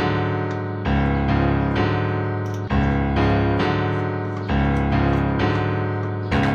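Background music on a piano-like keyboard: chords struck about once a second, each fading before the next.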